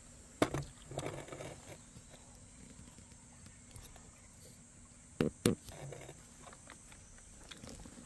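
Sharp knocks and scuffs in two short clusters, one about half a second in and another just past five seconds, over a faint steady high-pitched whine.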